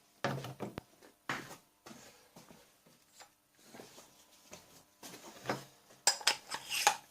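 Small metal parts clinking and knocking as they are handled and set down on a workbench, a freshly machined adapter piece for a stock tube among them. The knocks are irregular, with a busier, louder cluster near the end.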